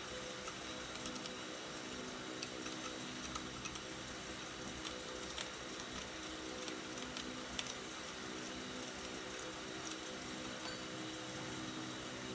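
Faint, scattered small clicks and taps of metal and plastic brush cutter frame parts being handled and fitted by hand, over a steady low hum.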